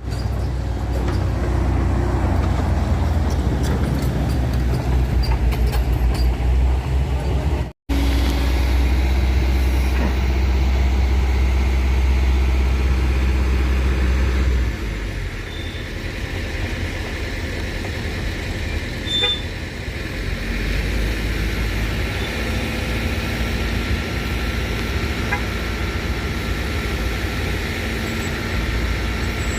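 Heavy trucks' diesel engines running hard on a steep uphill road, with traffic noise. The sound drops out for an instant about 8 s in, eases about 15 s in, and a deep engine rumble builds again around 20 s.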